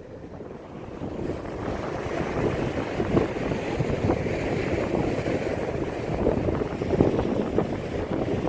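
Wind buffeting the microphone: a gusty, rumbling noise that grows louder about a second in.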